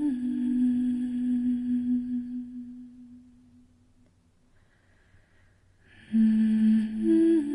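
A woman humming a slow wordless melody. A long held note fades away over about three seconds and is followed by a short near-silent pause. A new note begins abruptly about six seconds in and steps up in pitch a second later.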